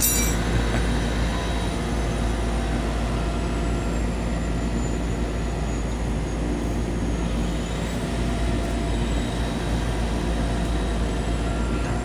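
Heavy wrecker truck's diesel engine running steadily at idle.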